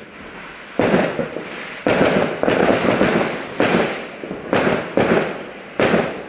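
Aerial fireworks going off: a run of loud bangs, roughly one a second, starting about a second in.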